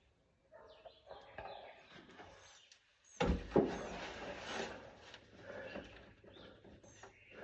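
Tool and hand noises from working a socket wrench at a spark plug in a tight spot of the engine bay, with a sudden loud knock about three seconds in. Birds chirp faintly in the background.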